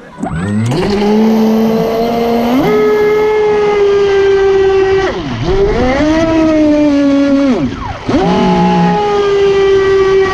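Proboat Impulse 31 RC boat's electric brushless motor and metal propeller whining at speed. The whine climbs as the boat takes off, dips sharply twice and climbs again, with water spraying off the hull.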